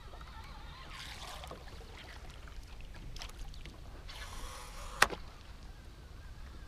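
Wind and small waves against a small aluminium fishing boat, heard as a steady low rumble. Over it come a falling swish about a second in, a brief hiss just after four seconds, and a single sharp knock at about five seconds.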